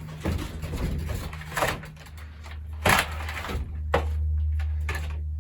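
Handling noise: a few sharp knocks and clunks, about one and a half, three and four seconds in, with rustling between them, over a steady low hum.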